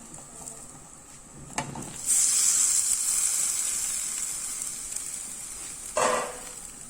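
Food hitting a hot pan sizzles loudly all at once after a brief knock, then the sizzle slowly dies down, with a short clatter of stirring near the end.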